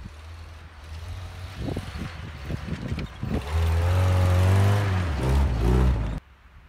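A Jeep driving up a snowy trail toward and past the camera, its engine running low and steady, then much louder about halfway through as it climbs close by, the engine note rising and falling. The sound cuts off suddenly near the end.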